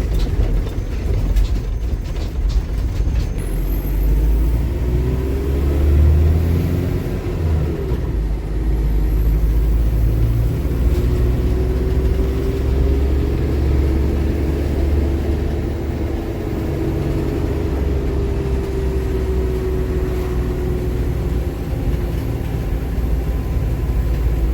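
Force Tempo Traveller's FM 2.6 diesel engine and drivetrain heard from inside the moving van: a steady low rumble, with the engine note rising as it pulls and easing off later. There are a few clicks near the start, and no knocking or jolting from the freshly repaired rear differential.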